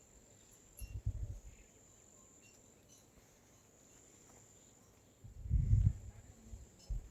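Insects trilling steadily at a single high pitch, with low dull thumps about a second in and a louder rumbling bump around five and a half seconds.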